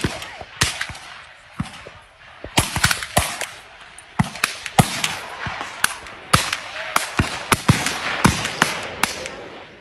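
Black-powder muzzleloading muskets firing along a skirmish line: an irregular string of sharp shots, louder and fainter ones mixed, several a second at times with brief lulls between.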